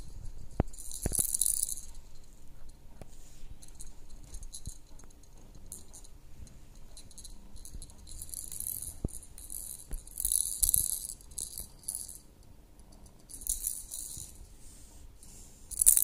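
Rattle toy of clear plastic with loose pieces inside, shaken and batted about by a kitten's paws: several short bursts of rattling a few seconds apart, with a few soft knocks between them.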